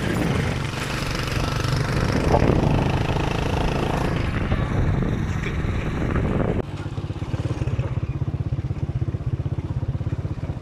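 Motorcycle engine running steadily while riding, with heavy wind rush over the microphone. About two-thirds of the way through, the wind noise cuts off suddenly, leaving the engine's even low pulsing.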